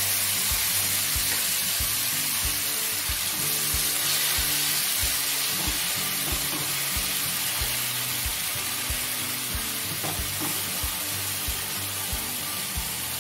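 Marinated chicken pieces sizzling in hot oil in a nonstick frying pan, stirred and pushed around with a wooden spatula. Background music with a steady beat runs underneath.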